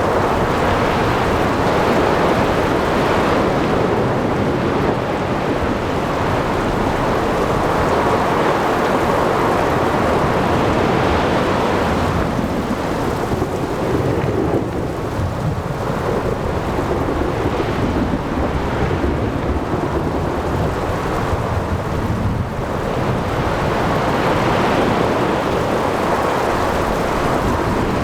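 Thunderstorm at sea: low rumbling thunder over steady heavy rain, with waves and wind blended into a dense, continuous wash of noise.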